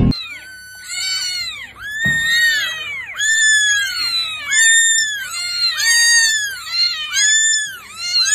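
Kitten mewing over and over in high-pitched meows that rise and fall, about two a second, some of them overlapping.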